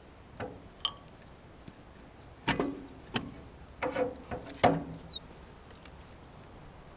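Irregular metal clanks and knocks, one with a brief metallic ring, as the Ford 8N's old cast-iron generator is shifted against its mounting bracket and the engine block. The loudest cluster of clanks comes in the middle.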